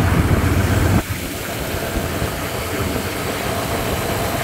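1976 Ford Bronco's small-block Ford V8 idling steadily, warmed up to operating temperature. A heavier low rumble cuts off about a second in, leaving a quieter, even idle.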